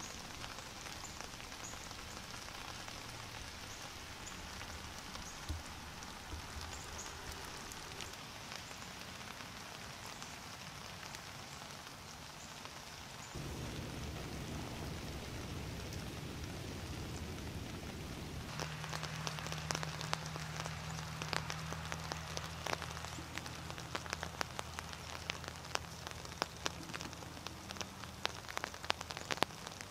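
A steady hiss like light rain. It thickens in the low end about halfway through, and from about eighteen seconds in it is joined by dense, irregular crackling ticks over a low steady hum.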